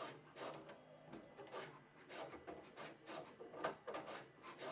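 Bambu Lab H2C 3D printer's hotend rack and toolhead running a pick-and-place test: quick motor moves with a string of clicks and knocks, about two a second, as the induction hotend holders shift, over a faint low hum.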